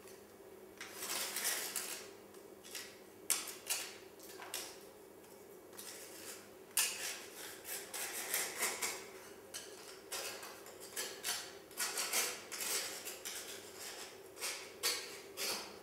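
Irregular light clinks and scrapes, some sharp and some in short scratchy runs, coming every second or so, over a faint steady hum.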